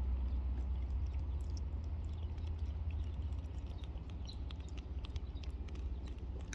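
Cat licking and smacking at a squeeze tube of Churu paste treat: quick, wet little clicks of tongue and mouth that come more often toward the end, over a steady low rumble.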